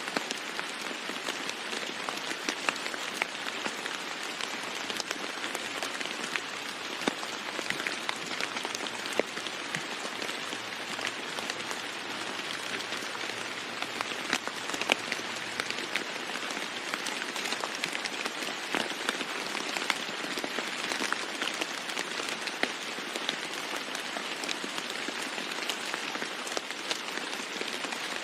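Steady rain falling on a roof, an even hiss dotted with many sharp ticks of individual drops.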